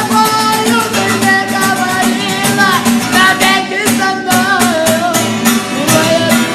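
Song with singing over plucked guitar and a steady beat.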